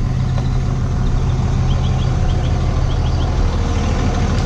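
A vehicle's engine running with a steady low drone.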